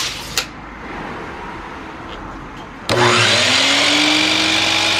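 DeWalt miter saw switched on about three seconds in, its motor whining up to full speed and then running steadily as the spinning blade goes into an MDF board. Before that, only a faint background with a couple of light clicks.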